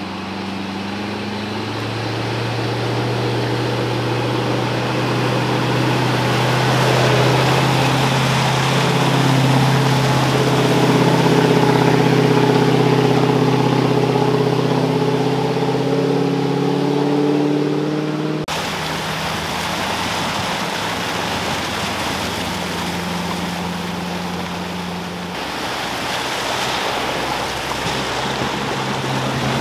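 V8 Land Rover Discovery 1 wading through a fast-flowing flooded river crossing: the engine pulls steadily with its revs slowly climbing, over the rush and splash of water around the wheels. About two-thirds of the way through, the sound cuts abruptly to another 4WD, a Suzuki Grand Vitara, running in the same rushing water.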